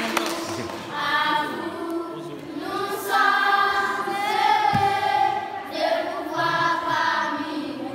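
A group of schoolchildren singing together as a choir, in long held notes.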